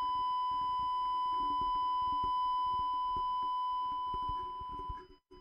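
A long, steady electronic beep played from a phone speaker, picked up by a USB condenser mic that is being turned in the hand for a polar-pattern test, with handling bumps and rubbing underneath. The tone gets a little quieter near the end, then breaks off briefly.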